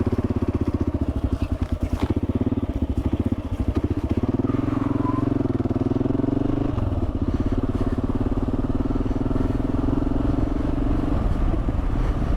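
Kawasaki KLR650's single-cylinder engine running steadily as the motorcycle is ridden, its note shifting about seven seconds in.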